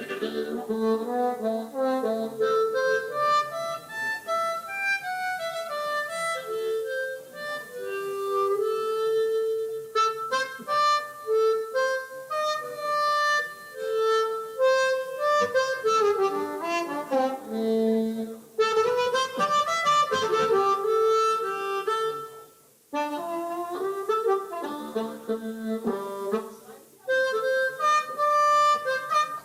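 Blues harmonica playing a solo in a live band performance, in a run of short melodic phrases with a couple of brief breaks near the end.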